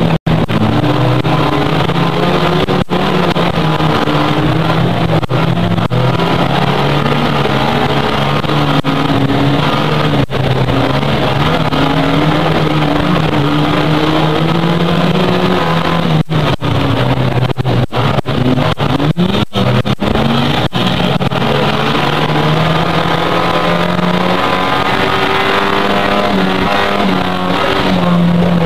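Autocross race car's engine at full racing effort, heard from inside the cockpit, its pitch repeatedly rising and falling with throttle and gear changes. Several brief cut-outs in the sound come a little past halfway.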